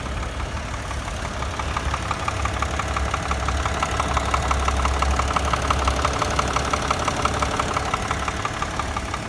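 Subaru Tribeca's flat-six engine idling with a fast, regular knock, a little louder in the middle. It is the engine knock the owner is showing.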